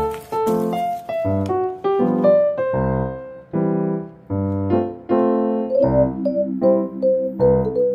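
Background music: a light keyboard tune, a melody of short notes over chords.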